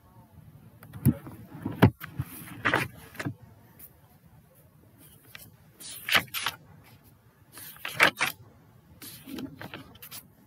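Scattered handling noises at a desk: a few short knocks and brief rustles, several seconds apart.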